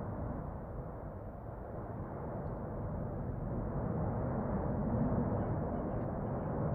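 Erupting Cumbre Vieja volcano: a steady, deep rumble with no separate blasts, growing slightly louder through the second half.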